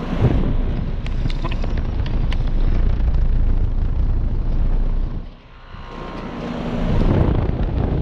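American Standard Gold Series central air conditioner condensing unit running, its fan's discharge air buffeting the microphone with a loud rushing over the hum of the scroll compressor. The rushing drops away briefly a little past the middle, then builds back up.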